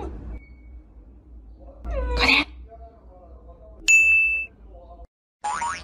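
Cat meowing: the end of one meow at the start, then a short meow about two seconds in that rises and falls in pitch. A bright, ringing ding sound effect about four seconds in, then the sound cuts off abruptly.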